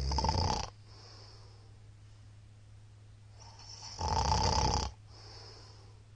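A middle-aged man snoring loudly in his sleep: one snore ends just after the start and another comes about four seconds in, each followed by a softer breath.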